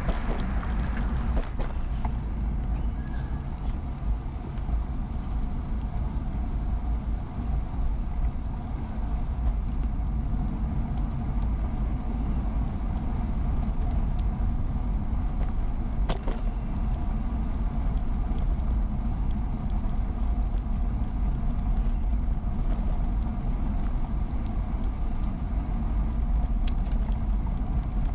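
Steady low rumble of wind on the camera microphone and tyre noise while riding an early-1970s Peugeot UJ-10 ten-speed road bicycle, with a few short sharp clicks, the clearest about sixteen seconds in.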